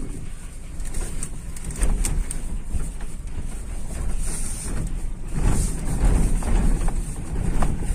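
Cabin noise of a car driving slowly over a broken, potholed lane: a continuous low rumble of tyres and suspension with a few short knocks and rattles over the bumps.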